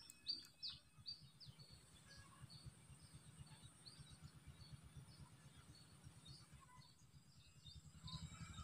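Faint bird chirps: short, high notes falling in pitch, several close together in the first second, then sparser and fainter against near silence.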